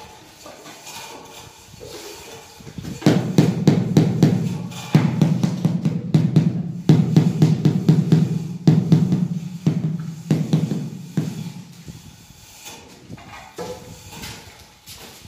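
Rubber mallet tapping a marble floor tile to bed it into the cement mortar beneath. The dull thuds come quickly in several runs, starting about three seconds in and stopping around eleven seconds.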